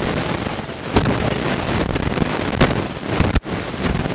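Wind rushing and buffeting against the microphone, with a few sharp knocks. It cuts out for an instant about three and a half seconds in.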